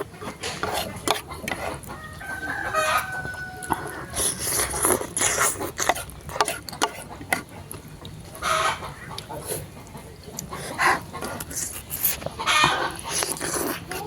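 Close-up eating sounds of spicy noodles: slurping, chewing and smacking with frequent sharp clicks. A held call sounds in the background between about two and four seconds in.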